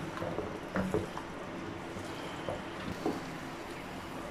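Faint steady hiss from a pot of spinach-and-mutton curry cooking on the flame, with a few soft plops and light knocks.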